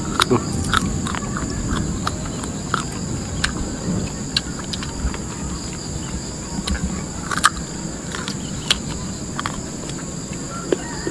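Crisp, crunchy bites and chewing of a half-ripe guava close to the microphone, heard as irregular sharp crunches. A steady high insect drone runs underneath.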